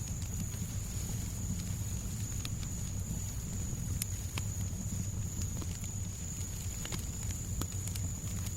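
Fireplace crackling, with irregular small pops and snaps over a steady low rumble and a thin, steady high tone.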